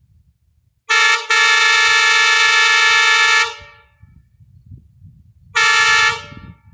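Homemade half-scale Nathan P5A air train horn sounding its multi-note chord: a short toot about a second in, running almost at once into a long blast of about two seconds, then a short blast near the end. Each blast cuts off and trails away in echo.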